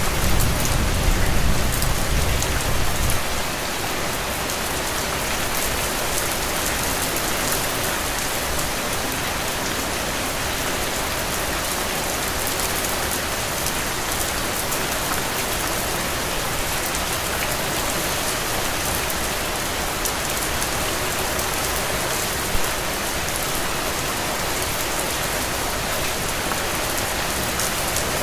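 Heavy, steady rain falling on the ground and into puddles: an even hiss with many fine drop ticks. A low rumble underneath stops about three seconds in.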